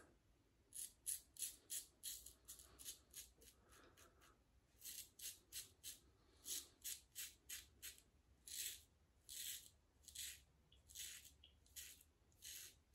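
Rockwell Model T double-edge safety razor with a Gillette 365 stainless blade scraping through lathered stubble. It makes faint short rasping strokes, several a second, in runs with brief pauses.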